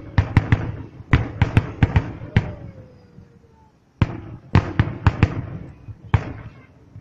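Fireworks going off in rapid volleys of sharp bangs. There is a lull of about a second and a half near the middle, then another volley.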